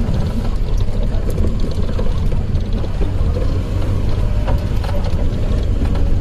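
Maruti Gypsy driving off-road over rough ground: a steady low engine and drivetrain rumble with a few scattered knocks and rattles.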